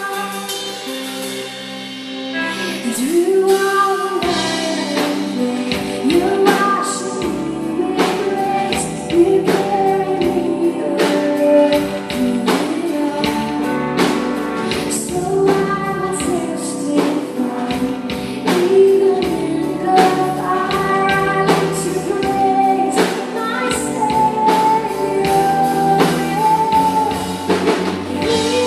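A woman singing a contemporary Christian worship song live with a band. The bass and a steady beat come in about three to four seconds in, under the sung melody.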